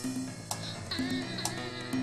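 Instrumental opening theme music of a TV programme: a bass line stepping between notes, with sharp percussion hits about every half second.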